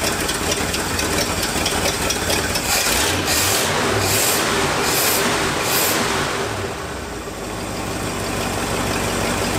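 Ford 360 V8 in a 1968 F-250 idling during ignition-timing and carburettor tuning, running rough but smoothing out after the timing was set. Near the middle come four short hisses, about a second apart.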